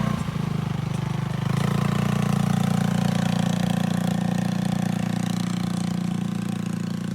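Polaris RZR 170 side-by-side's small single-cylinder engine running steadily, dropping briefly just after the start, then running a little stronger from about a second and a half in.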